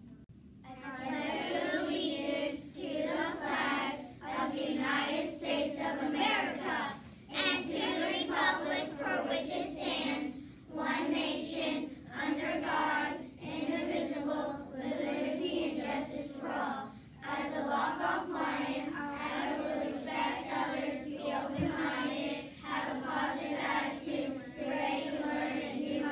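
A group of schoolchildren reciting the Pledge of Allegiance together in unison, in short chanted phrases with brief pauses between them.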